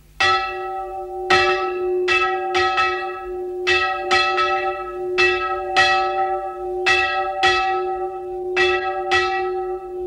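Village church bell struck over and over in an uneven rhythm, about two strikes a second, its tone ringing on between the strikes.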